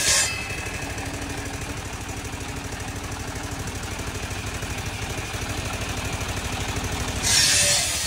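Sawmill engine running at a steady idle with a fast, even low pulse while the saw is not cutting. About seven seconds in, a loud hiss starts as the saw cuts into wood again.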